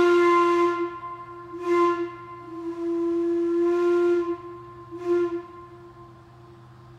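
A 4-inch Crane whistle blowing one steady, single-pitched note. It sounds in four blasts: a long one ending about a second in, a short one near two seconds, a long one of about two seconds, and a short one around five seconds.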